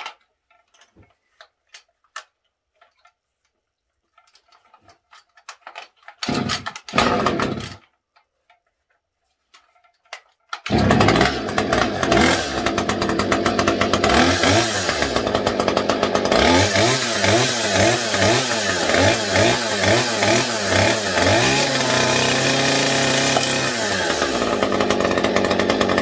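Husqvarna 572 XP two-stroke chainsaw: after some handling clicks and two short loud bursts as it is pulled over, it starts about eleven seconds in and runs, revved up and down over and over, held at high revs briefly near the end.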